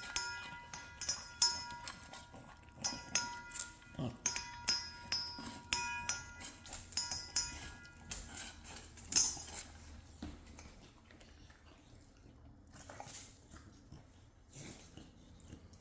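Dog eating moistened dry kibble from a bowl: rapid clicking and crunching, with the bowl clinking and ringing at each knock. The clinking thins out after about nine seconds to a few scattered clicks.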